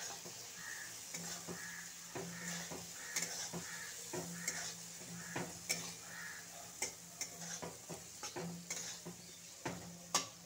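Metal spatula scraping and knocking against a metal kadai as fried potato and brinjal are stirred through sizzling spice paste, with irregular clinks every half second or so over a steady sizzle.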